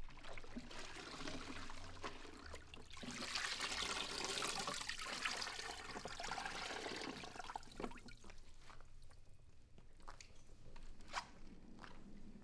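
Water pouring and trickling into a mop bucket as a mop is wrung out in the bucket's wringer. The rush of water swells a few seconds in and then fades, followed by a few light knocks near the end.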